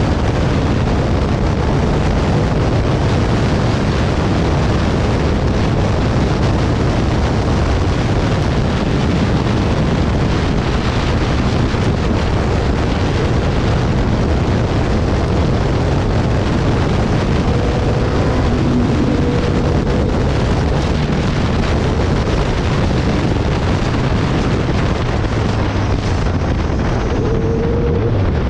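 Wind rushing hard over the microphone of a moving motorcycle, a loud, steady roar of wind and road noise with the engine running underneath. A faint tone rises near the end.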